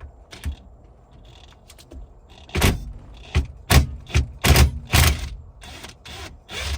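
Cordless impact wrench fired in about seven short bursts, starting loosening the steering-wheel retaining bolt; a few small clicks come before it.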